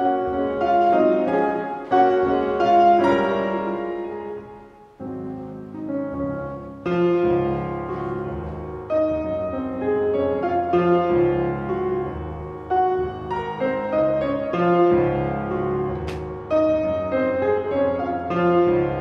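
Solo piano music, a slow classical piece played on acoustic piano; one phrase dies away just before five seconds in and a new one begins.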